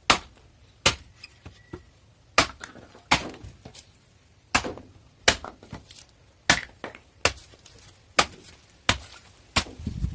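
A freshly re-made hooked chopper (chhen dao) chopping through green bamboo on a wooden block: about a dozen sharp chops at uneven spacing, roughly one every second or less, each a crisp crack of the bamboo splitting.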